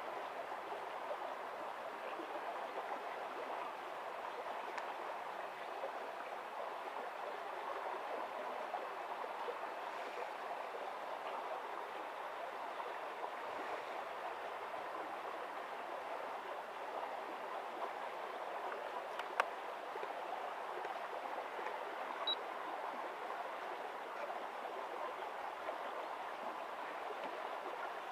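Steady rushing background noise, even and unbroken, with a single faint click about two-thirds of the way through.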